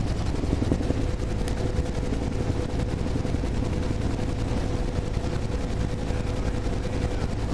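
Helicopter in flight heard from inside the cabin: a steady drone of rotor and engine with a faint steady whine above it.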